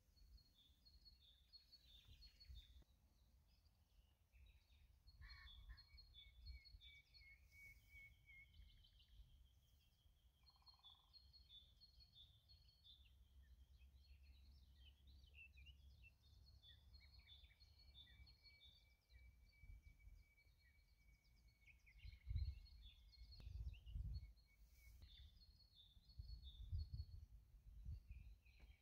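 Faint dawn chorus of several birds singing in a meadow: short high chirping phrases repeating throughout, with two long drawn-out high notes in the middle. A low rumble underneath swells twice near the end and is the loudest sound there.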